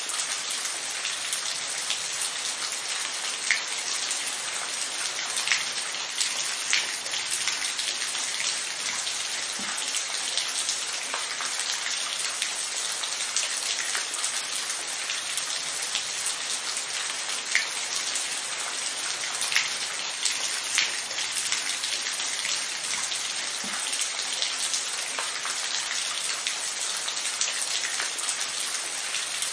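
Steady rain falling, an even hiss with scattered louder individual drops ticking on a surface.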